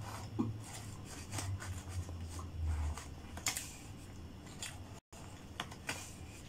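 Close-up chewing of fried chicken nuggets: low muffled chewing with scattered small wet clicks and smacks from the mouth. The sound drops out for a moment about five seconds in.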